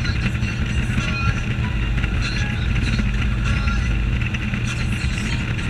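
Wind rushing over the camera microphone with a motorboat's engine running underneath as the boat travels fast, a steady, loud rumble.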